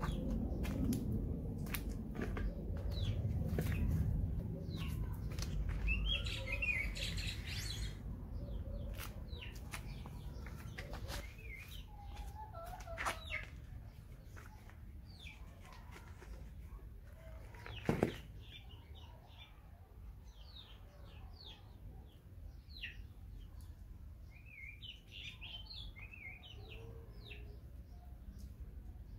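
Small birds chirping again and again, over low rustling handling noise that is strongest in the first few seconds, with one sharp knock a little past halfway.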